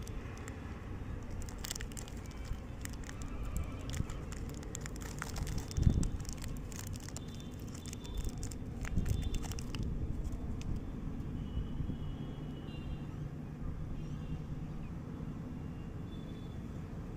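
Crackling of a chocolate wrapper being handled: many short, sharp crinkles for the first ten seconds or so, then fewer, over a steady low rumble.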